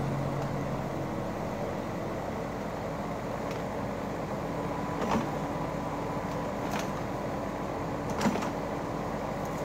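Kubota U50 mini excavator's diesel engine running steadily under work, with two short knocks about five and eight seconds in.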